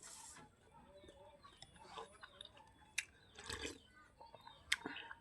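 Eating sounds from a mouthful of rice noodles with pork: soft chewing with scattered wet mouth clicks, and a louder smack about three and a half seconds in.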